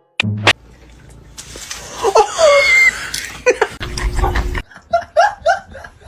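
A person laughing in a run of short, repeated bursts in the second half, after a stretch of rustling noise with a few brief high squeaks.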